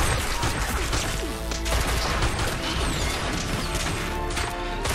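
Action-scene soundtrack: a dramatic music score under a rapid run of gunshots and crashing impacts.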